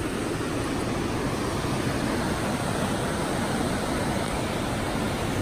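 Steady rushing of a stream running through a narrow rock gorge below.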